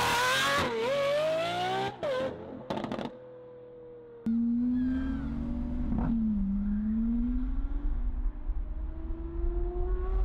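Car engines revving hard, with the pitch sweeping up and dropping back in the first couple of seconds. About four seconds in, a lower, steadier engine drone with rumble takes over, its pitch climbing slowly as the car gains speed.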